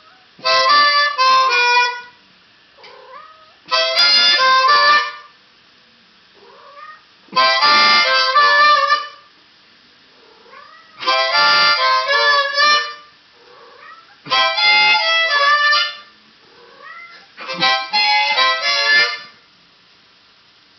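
A harmonica plays six short chord phrases, each about a second and a half long and roughly three and a half seconds apart. A cat meows in short, quieter calls in the pauses between the phrases, singing along with the harmonica.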